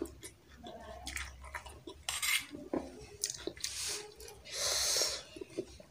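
Metal cutlery clicking and scraping against a steel bowl while noodles are eaten, with a few short noisy mouth sounds of eating in between, the longest about three-quarters of the way through.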